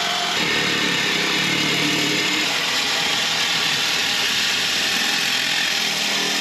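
Ryobi cordless reciprocating saw cutting through a 4-inch stainless steel exhaust pipe, its blade sawing the metal with a steady, loud rasp.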